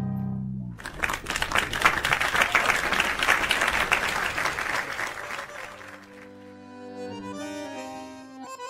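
The tango quartet's final chord dies away, followed by about five seconds of applause. Around six seconds in, the bandoneón begins the introduction to the next tango, with guitar and piano under it.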